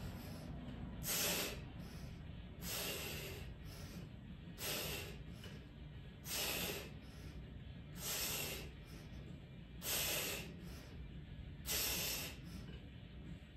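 A man breathing hard as he recovers after a set of dips: seven forceful, hissing exhales, evenly spaced about every second and a half to two seconds.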